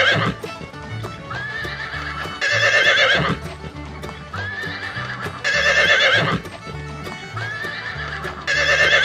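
Horse whinnying, the same neigh repeated about every three seconds with a shorter rising call between each, over background music with a steady bass line.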